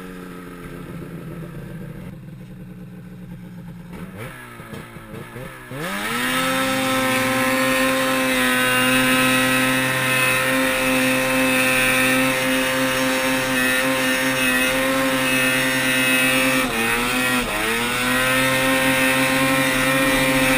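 Ski-Doo XP 500SS snowmobile's two-stroke twin engine running at low revs, then about six seconds in revved hard and held at high, steady revs as the sled rides a long wheelie. About three quarters of the way through the revs drop twice, quickly, and climb back.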